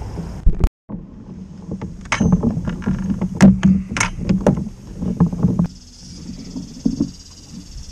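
Kayak on the water: a run of irregular knocks and bumps against the hull as it is paddled and handled, followed by a steady hiss after about six seconds.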